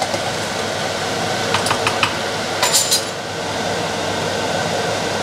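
Wine simmering and bubbling in a hot frying pan of onions as it deglazes. A few light clinks of a metal spoon come in two short bunches around the middle.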